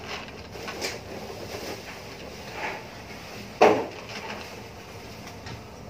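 A few soft knocks and clatter of objects being handled, with one loud, sharp thump about three and a half seconds in.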